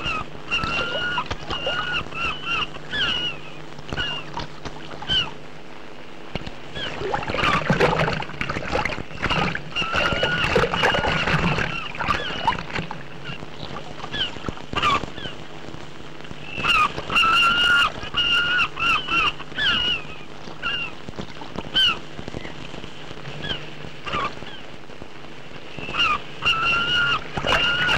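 Seabirds calling: short, hooked calls repeated in bursts of several, over the low steady hum of a boat's engine. A louder rush of noise, like water, comes about eight to twelve seconds in.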